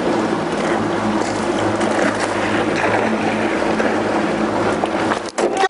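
Outboard motor on a small aluminium jon boat running steadily at speed, with a rush of wind and water. A few sharp knocks come near the end.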